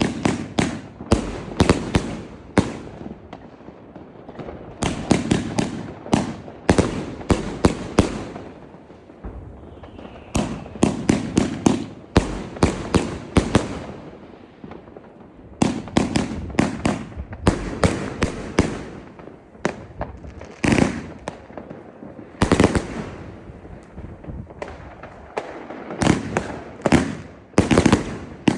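Fireworks bangers going off in quick volleys: clusters of sharp, loud bangs in rapid succession, each cluster broken by a pause of a second or two, over and over.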